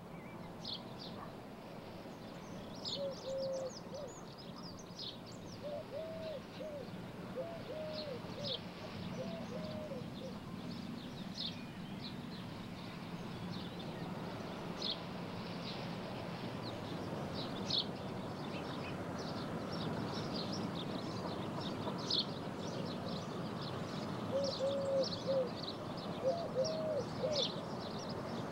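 Birds chirping with short high calls throughout, and a low, repeated cooing call in a phrase early on and again near the end, over a steady background hiss.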